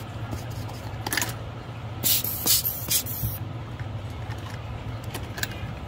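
A stiff bristle brush cleaning a phone's frame, making short hissing, scratchy bursts: one about a second in and a louder cluster around two to three seconds in. A steady low hum runs underneath.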